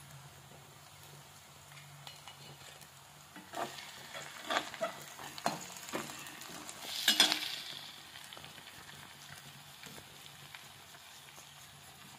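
Chopped onions frying gently in oil in a kadhai, with a steady quiet sizzle. A metal spoon stirs through them, clicking and scraping against the pan in the middle, loudest about seven seconds in.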